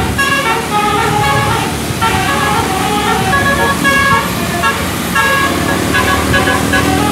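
Bus 'telolet' musical air horn playing a tune in quick short notes that jump in pitch, over the bus's engine running.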